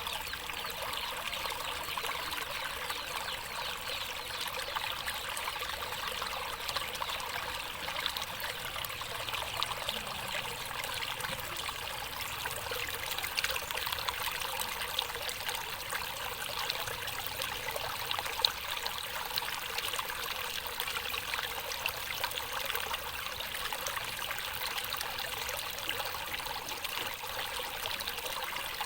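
Stream water running and trickling steadily over rocks, a continuous splashing hiss with no low rumble, and one slightly sharper splash about eighteen seconds in.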